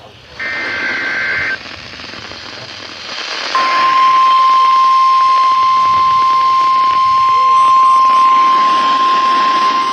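NOAA Weather Radio broadcast over a receiver: a brief warbling data burst of the EAS header, a couple of seconds of radio static, then the steady 1050 Hz warning alarm tone starting about three and a half seconds in and holding unbroken, sounded as part of the required weekly test. Near the end a faint second beeping pattern joins the tone.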